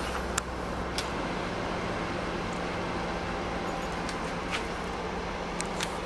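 Microwave oven running with its outer cover off: a steady hum from the transformer and cooling fan, with a few faint clicks.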